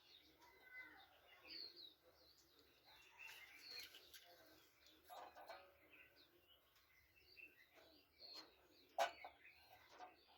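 Faint background birds chirping at intervals, with one sharp click about nine seconds in.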